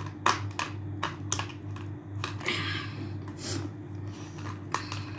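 Eating sounds: scattered crisp clicks and crunches of someone biting and chewing crispy fried chicken, with a brief rustle about halfway, over a steady low hum.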